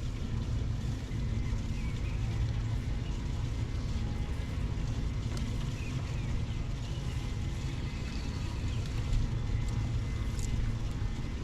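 Boat motor running steadily, a continuous low hum under wind and water noise.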